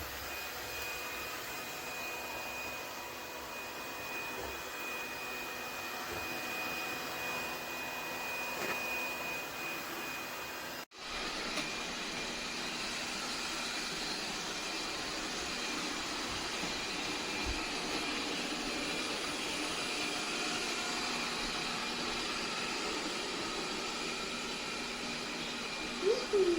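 Robot vacuum running with a steady whir and a thin high whine. The sound cuts out for an instant about eleven seconds in, then carries on.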